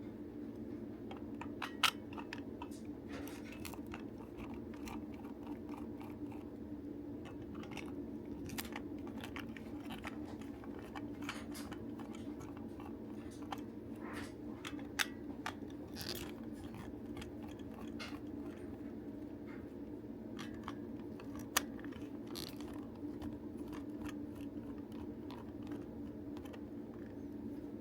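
Small plastic clicks, crackles and scrapes as a toy transformation belt's plastic parts are handled and pried apart during disassembly, with a few sharper clicks, over a steady low hum.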